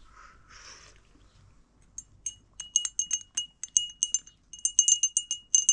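A teaspoon stirring in a glass of tea, clinking quickly and evenly against the glass about four or five times a second with a bright ringing note. The clinking starts about two seconds in.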